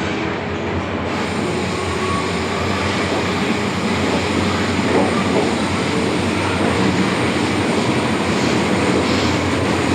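MTR Island Line M-Train running, heard from inside the car: a steady rumble of motors and wheels on the track with a low hum, slowly growing louder.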